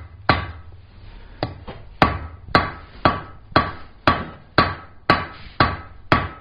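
Hand hammer striking a hot bar of 3/8-inch square mild steel on an anvil, about two blows a second, each with a short metallic ring. The bar is being straightened and rotated after a double set-down that forms the shoulder for a ball end.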